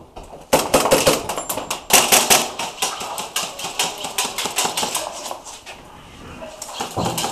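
Airsoft guns firing in rapid bursts: quick runs of sharp cracks start about half a second in and go on for about five seconds, with a few more shots near the end.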